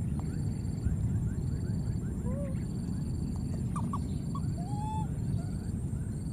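A few short, faint squeaky calls from baby monkeys, some arched and some rising, over a steady low rumble. A high short note repeats about once a second in the background.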